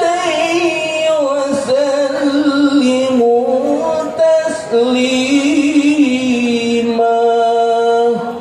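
Sholawat, an Islamic devotional song, sung in long, ornamented held notes that bend and turn between pitches; the phrase ends shortly before the close.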